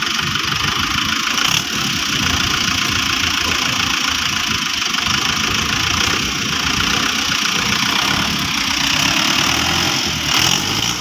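Mahindra Arjun 555 DI tractor's diesel engine running steadily.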